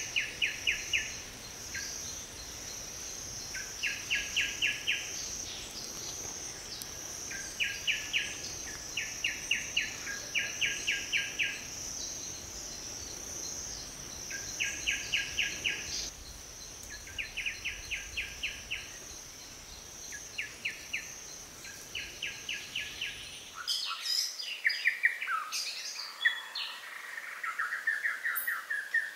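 A bird singing short runs of rapid, evenly spaced notes, about seven to a run, repeated every couple of seconds over a steady high insect drone. Near the end the sound changes suddenly to varied chirps and whistles.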